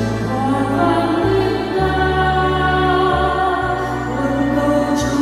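A choir of women singing a Vietnamese Catholic hymn in harmony, holding long notes, over an accompaniment of sustained bass notes that change every second or so.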